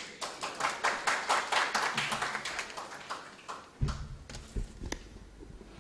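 Audience clapping after a talk, dense at first and thinning out, dying away after about three and a half seconds; then a few low thuds as the podium microphone is handled.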